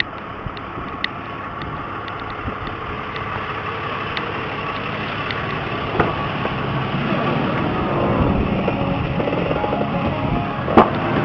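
Chevy pickup engine cranking over on the starter without catching, the sign of the failing fuel pump not delivering fuel. The cranking grows louder in the second half, with a sharp knock near the end.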